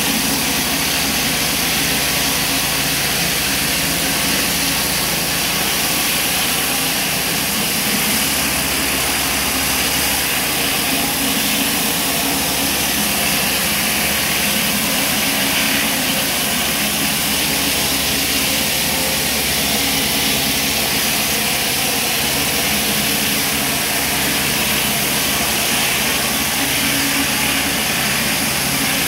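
A flat surface cleaner's spinning water jets hiss steadily against block paving, over the constant running of a pressure washer's engine.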